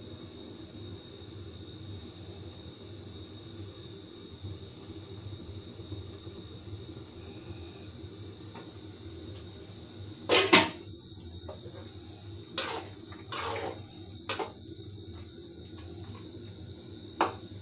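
Steady low background noise of a cooking pot on the stove, then a handful of sharp knocks and short scrapes of a utensil against the pan, the loudest about ten seconds in.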